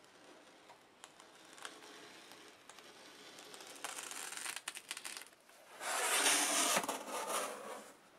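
X-Acto hobby knife slicing through a sheet of foam padding along the edge of MDF: a faint scraping that grows louder in strokes, with a louder rustling stretch lasting over a second about six seconds in.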